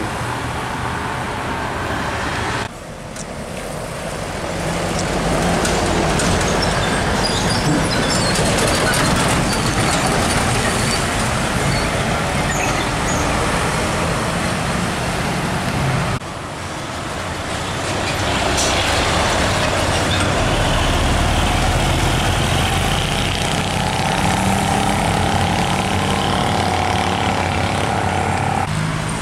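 Road traffic: diesel trucks and motorbikes running past on a winding road, a steady mix of engine and tyre noise. In the last few seconds a steady whine rises above the traffic.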